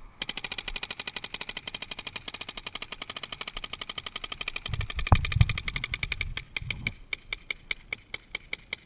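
Paintball marker firing a rapid stream of shots, about a dozen a second, thinning to a few shots a second and fading near the end. A dull thump about halfway through.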